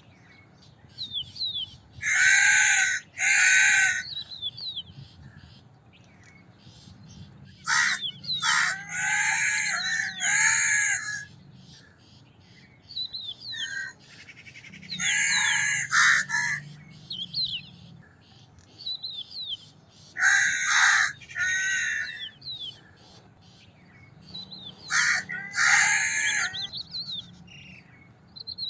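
Crows cawing: loud, harsh caws in bouts of two to four, repeating every four to five seconds, with fainter bird chirps in the gaps.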